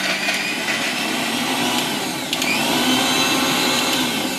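Electric mixer grinder running at full speed, chopping chunks of fresh coconut, green chilli and roasted chana in its jar before any water is added. About two seconds in the motor briefly dips and whines back up to speed, and at the very end it is switched off and starts to wind down.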